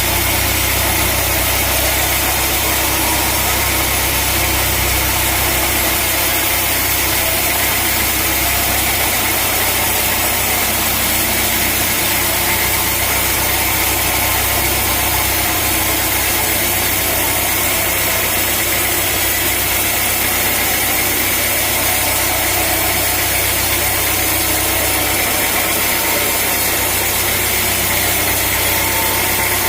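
Sawmill engine running steadily and loudly, with a constant mechanical drone and hiss that does not change.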